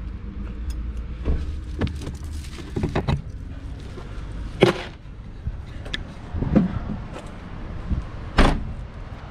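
Handling of a chain dog leash and a Renault Clio hatchback's boot: small clicks and jingles, then three sharp knocks, the loudest near the middle and near the end, as the tailgate is brought down and shut. A steady low rumble sits underneath.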